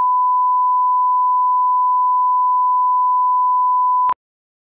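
Steady single-pitch test tone: the reference beep that goes with television colour bars. It cuts off suddenly a little after four seconds in.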